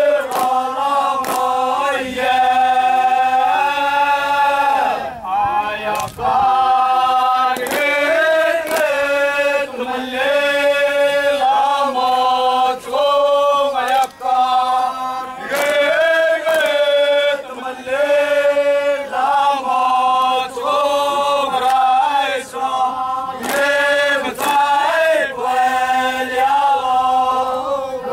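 A group of dancers chanting in unison for a Yapese bamboo stick dance, in held phrases that step up and down in pitch, with sharp clacks of bamboo sticks struck now and then.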